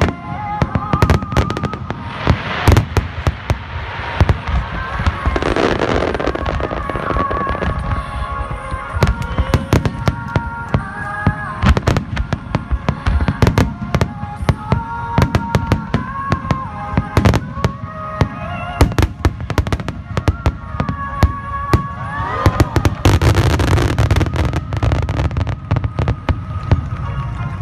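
Aerial fireworks shells launching and bursting in rapid, continuous succession, a dense run of sharp bangs, over music playing.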